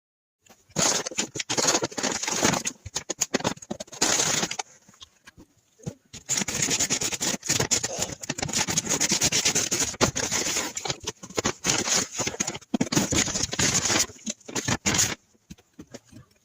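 Blind-bag packaging being handled and opened: plastic crinkling and rustling with sharp crackles, in two long stretches with a short pause between them.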